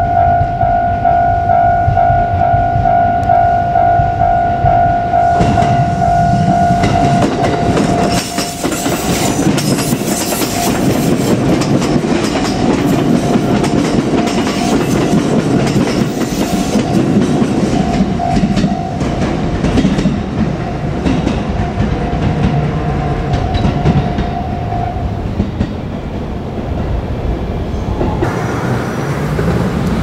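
JR Kyushu 787-series electric express train running past at close range, its wheels clattering over the rail joints. Over it a level-crossing warning bell rings, loud at first, then fainter, and stops a few seconds before the end.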